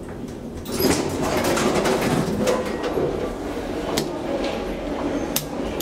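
Schindler hydraulic elevator door and machinery noise. The sound jumps up sharply about a second in, then runs on with scattered clicks and knocks.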